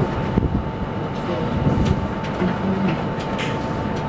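Steady workbench room noise: a low rumble with a constant thin whine and a few small scattered clicks.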